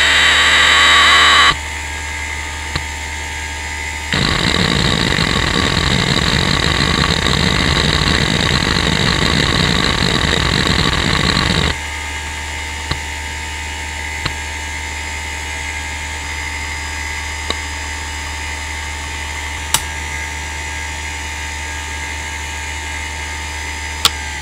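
Western Digital Caviar 31200 (WDAC31200-08F, 4500 rpm IDE hard drive) running a Speedsys benchmark: a steady spindle whine and hum, with loud rapid head-seek noise briefly at the start and again for about eight seconds in the middle. In between and afterwards the drive just whines, with a few single sharp seek clicks.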